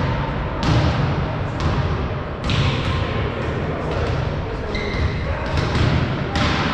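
Balls striking hands and the wooden floor in a large echoing sports hall, a sharp knock about once a second, with voices in the background.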